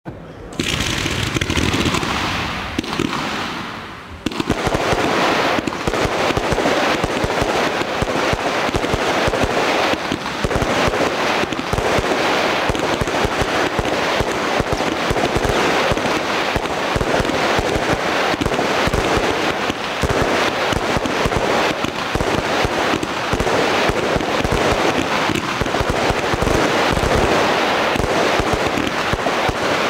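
Lesli 'Midnight Special' firework battery (cake) firing. From about four seconds in, it breaks into a dense, unbroken run of rapid shots and crackling stars.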